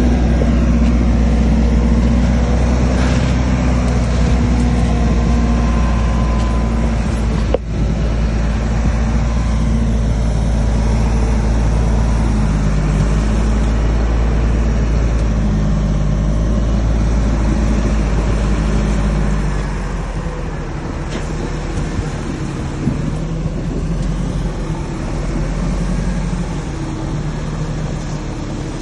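Heavy diesel engine of earthmoving machinery running steadily under load, its note stepping up and down a little. One sharp click comes a little before eight seconds in, and the engine sound drops somewhat about twenty seconds in.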